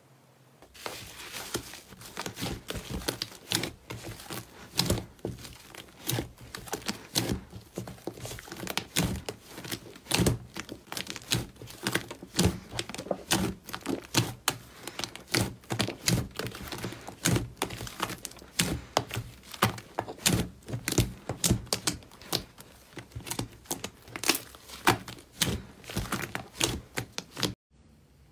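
Thick, air-bubbled green slime pressed and kneaded by hand in a plastic tub, giving a dense, irregular crackling of small pops and clicks as trapped air bubbles burst. The sound breaks off briefly just before the end.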